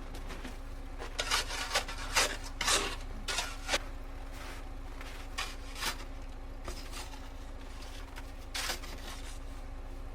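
A run of short, irregular scrapes, clustered in the first few seconds and then scattered, over a steady low hum.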